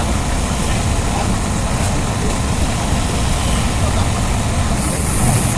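Diesel forklift engine running steadily at a low idle-like pitch, holding the load. A short high hiss comes near the end.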